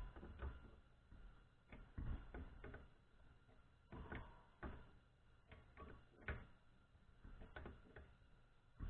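Faint, scattered clicks and knocks of a part being tightened and handled during reassembly of a drill press, about one every second or two.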